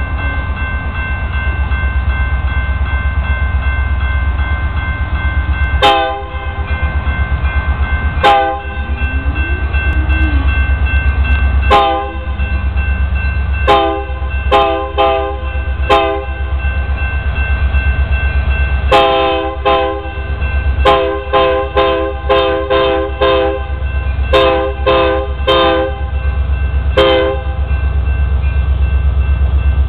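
Multi-chime air horn of a Union Pacific SD70M diesel locomotive leading a freight train, sounding a series of short blasts: a few spaced ones starting about six seconds in, then many in quick succession. Underneath is the steady low rumble of the diesel locomotives.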